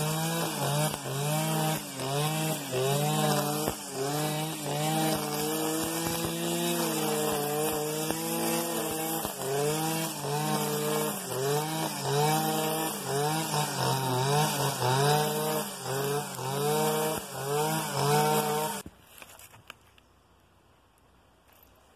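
Stihl FS 490 C-EM two-stroke brushcutter with a 3.0 mm nylon line head cutting tall grass, its engine revs rising and dipping over and over. The engine is shut off near the end and stops abruptly.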